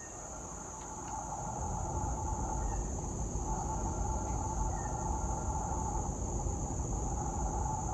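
Steady chorus of crickets or similar insects, with a low rumble that swells in about a second and a half in and then holds.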